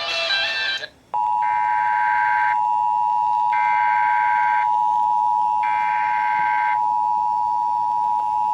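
NOAA Weather Radio emergency alert signalling: three SAME digital header bursts, each a shrill warbling data tone about a second long with about a second between them, over a steady warning alarm tone near 1 kHz that starts about a second in after a brief cut-out. The bursts and alarm tone announce the start of a new flood warning broadcast.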